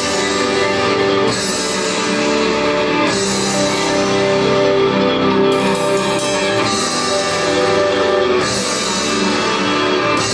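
Loud rock-style idol pop song with electric guitar and a drum kit, played through a live venue's sound system.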